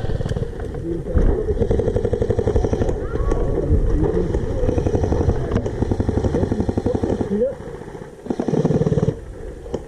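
Electric airsoft rifle firing long full-auto strings, heard as a fast, even rattle of shots from about a second in until near the end, with shorter bursts after that.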